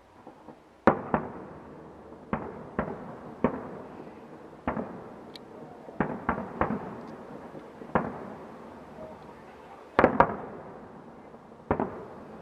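Aerial firework shells bursting: about a dozen sharp bangs at uneven intervals, each trailing off in an echo. The loudest comes about a second in, and a quick double bang comes later.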